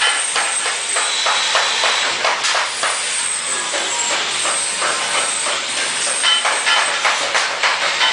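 Electric welding arc crackling and hissing steadily, with dense irregular pops and spits.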